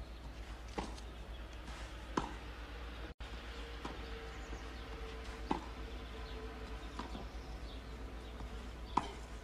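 Tennis rackets striking the ball in a clay-court baseline rally, a sharp pock about every one and a half seconds, six hits in all. A faint steady hiss and a low mains hum from the old TV broadcast recording lie underneath.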